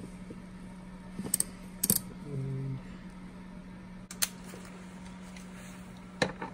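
A few separate sharp metallic clicks from a ratchet and socket on a long extension being fitted to and turned on a bolt, over a steady low hum.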